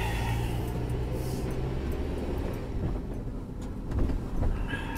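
Car engine and road noise heard from inside a moving car: a steady low hum, heavier for the first couple of seconds and then easing off, with a few faint soft knocks near the end.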